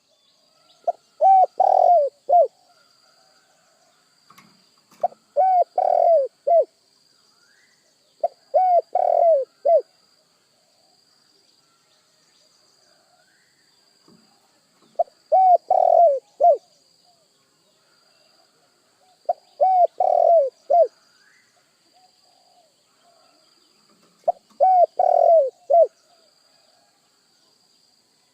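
Spotted dove (tekukur) cooing in repeated phrases of several short, falling coos. Six phrases come at intervals of about 4 to 5 seconds, with a longer gap in the middle. A faint steady high whine runs underneath.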